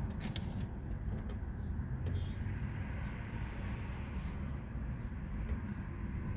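Steady low background rumble with faint bird chirps, and a few sharp clicks in the first half second.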